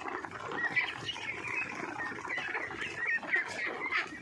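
A flock of three-month-old ducks peeping while they feed, with many short high calls overlapping without pause.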